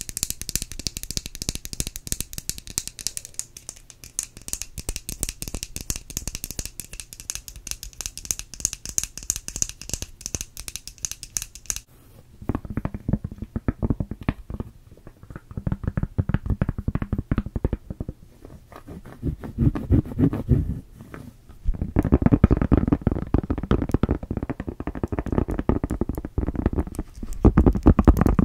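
Close-miked ASMR fingernail tapping: fast, crisp clicking for about the first twelve seconds, then duller, lower tapping and scratching of long nails on a rubbery phone case, heavier from about twenty-two seconds in.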